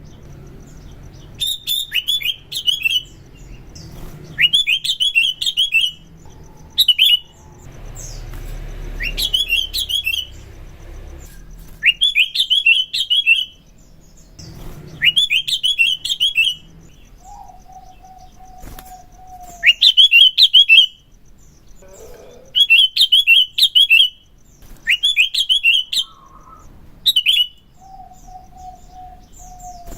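Sooty-headed bulbul (kutilang) singing: short bright phrases of sharp, rising chirps, repeated about every two seconds. Twice a lower, drawn-out wavering note sounds between the phrases.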